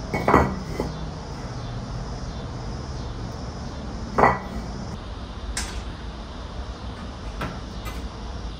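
Concrete cinder blocks knocking as they are set down on a stack of blocks: two sharp clunks, one just after the start and one about four seconds in, followed by a few lighter clicks.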